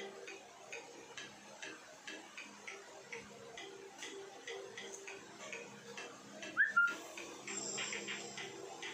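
Faint steady ticking, about two ticks a second, over faint steady low tones. About two-thirds of the way through comes a brief scrape with a short rising squeak, the loudest sound here.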